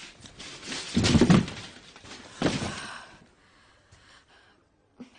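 A person breathing heavily, with two loud, rough breaths about a second and a half apart, then quiet.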